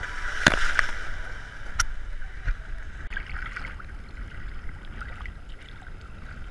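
Seawater sloshing and splashing against a camera held at the water's surface, with a few sharp splashes in the first two seconds over a steady low rumble.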